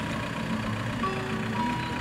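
Two electronic level-crossing warning bells ringing with short repeated tones in an uneven pattern while the barriers come down, over the steady low hum of a car engine idling close by.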